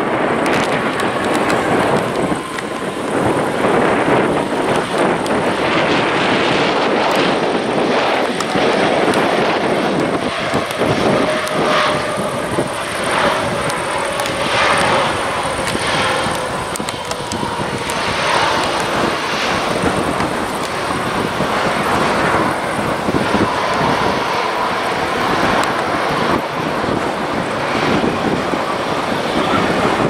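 Airbus A321 airliner's jet engines on the landing roll, a steady rush of noise with a whine that slowly falls in pitch as the aircraft slows. Gusts of wind buffet the microphone.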